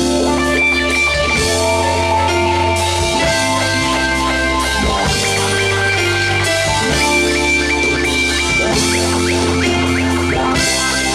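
Live band music with no singing: held chords over a sustained bass line, changing every second or two, with guitar.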